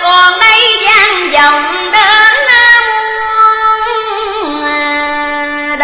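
Vietnamese cải lương (ca cổ) music: a female voice sings a drawn-out, ornamented line with wide vibrato, then long held notes that step down in pitch about four and a half seconds in.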